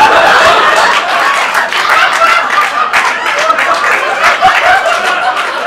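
Live theatre audience laughing and applauding loudly, the outburst easing a little toward the end.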